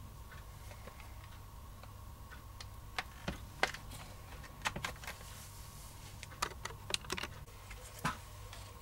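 Light, irregular clicks and taps of hands handling the plastic and metal parts of a nitro RC buggy's radio tray, about ten in all, starting about three seconds in, over a faint steady hum.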